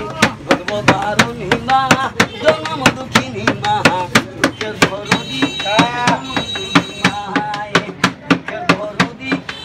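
Palm slapping a wooden bench in a steady rhythm, about three to four beats a second, as a hand-drum accompaniment to a folk song, with a man's voice singing held, sliding notes over it.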